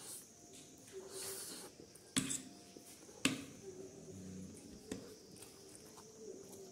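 Close-up eating sounds: noodles slurped in the first second or so, then a metal fork and spoon clinking sharply against a ceramic plate three times.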